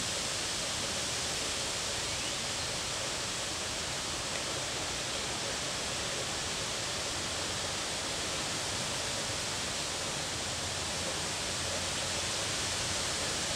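Steady, even hiss of wind blowing through tree leaves.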